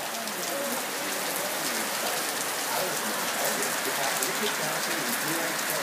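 Steady rain falling on the surroundings, a continuous hiss with scattered separate drop taps.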